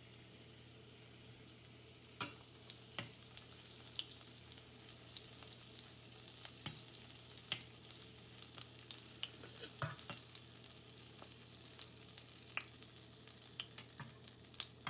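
Butter and groundnut oil sizzling and crackling in a stainless steel pot, stirred with a metal spoon that clicks against the pot now and then. The crackle picks up about two seconds in.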